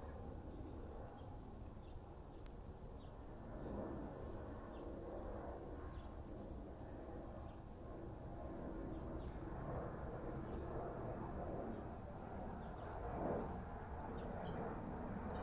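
Water dribbling from a garden hose spray nozzle as a cat laps from it, over a low steady rumble.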